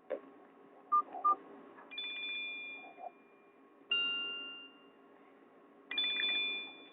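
A Nokia 216 mobile phone's loudspeaker plays a Nokia 5250 ringtone. After a click and two short beeps about a second in, the ringtone starts: a bright two-note chime every two seconds, each ringing out and fading.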